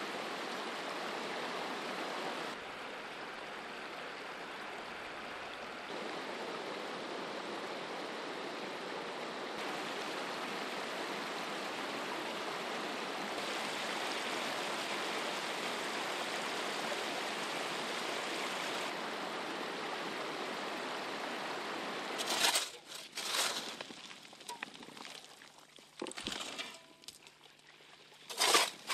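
Steady rush of flowing river water, stepping slightly up and down in level a few times. Near the end come several short, sudden bursts of water pouring and splashing.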